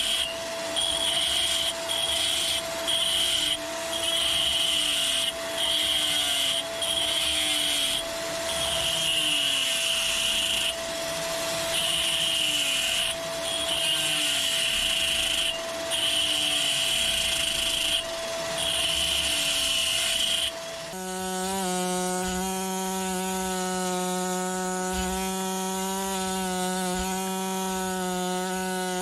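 Power tools working on a fossil Nautilus during preparation. For about the first 21 seconds a tool runs in short repeated bursts, one every second or two. Then a different motor-driven tool starts and runs steadily with a humming pitch.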